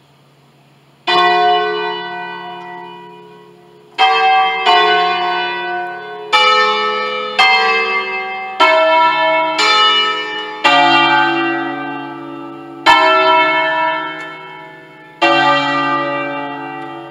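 Church bells of a five-bell ring in D, cast by Pruneri in 1953, sounding one stroke at a time in a slow melodic sequence on different notes. There are about ten strokes, starting a second in, each ringing out and slowly fading under the next.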